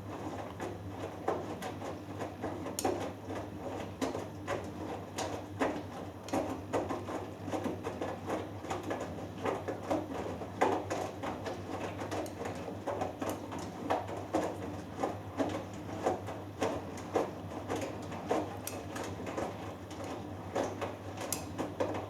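Hoover Dynamic Next DXA610IW3 washing machine in the wash phase of a cotton 40 °C cycle, its drum turning a 3 kg load. A steady motor hum runs under irregular soft knocks and splashes of wet laundry and water tumbling.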